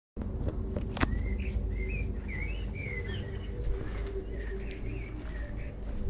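A songbird singing short, warbling phrases in two spells, from about a second in and again in the second half, over a steady low rumble. A sharp click comes just before the song starts.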